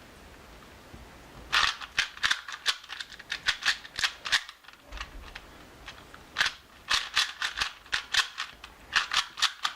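Plastic Cyclone Boys speed cube being turned in quick bursts of clicking, clacking layer turns during a solve. The clicking starts about a second and a half in and pauses for about a second around the middle.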